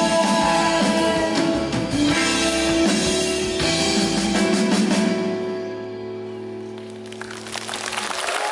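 Live band with drum kit and guitar playing the last bars of a pop-rock song, ending on a held chord that fades away. Crowd applause and cheering swell up near the end.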